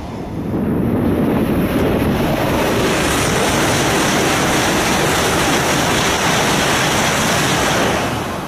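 E5-series Shinkansen passing through a station at high speed: a loud, steady rush of air and rail noise that swells about half a second in and dies away near the end as the train clears.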